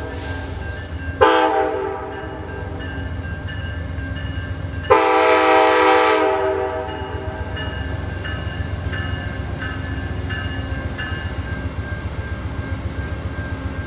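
Diesel locomotive air horn sounding a short blast, then a long one of about two seconds, the close of a grade-crossing signal. The train then runs on with a steady low rumble of wheels on rail.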